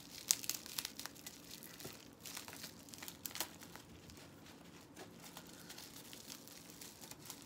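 Plastic packaging crinkling and tearing as a small cosmetic package is unwrapped by hand: scattered sharp crackles, the loudest about a third of a second in.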